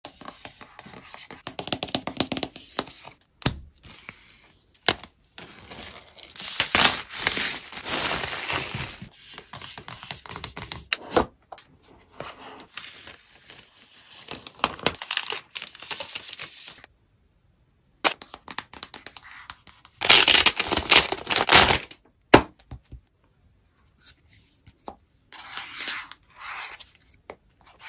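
Unboxing an iPad Air 4: paper wrap tearing and crinkling, and sharp taps and clicks as the box and a folio case are handled. The sounds come in short bursts separated by brief silences.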